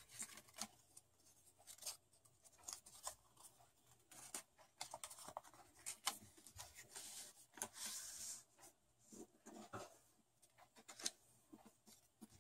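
Faint handling of folded colored paper: scattered light rustles, taps and slides, with a longer papery rustle about seven to eight seconds in.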